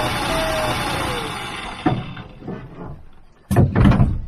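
Electric drill spinning a bit through a pre-drilled hole in a wooden brace against the van's metal wall to mark it. The motor whine falls in pitch and stops about a second in. A few light knocks follow, then a louder burst of handling noise near the end as the drill and board are put down.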